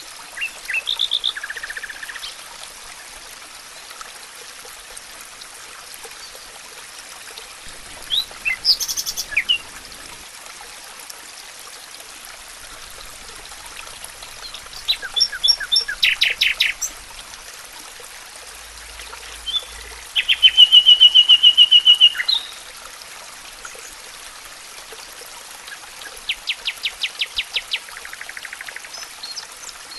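Songbirds singing in a forest: five separate phrases of chirps and trills, the loudest a rapid, even trill about two-thirds of the way through. Underneath runs the steady rush of a stream.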